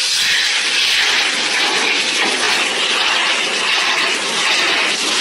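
Pet grooming dryer blowing a steady, loud rush of air from its nozzle.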